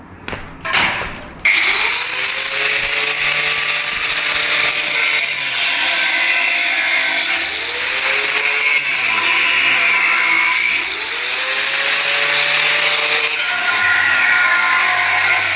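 Handheld power tool cutting or drilling under load, starting about a second and a half in. The motor runs loud and steady, its pitch sagging and recovering every few seconds as it bites and frees.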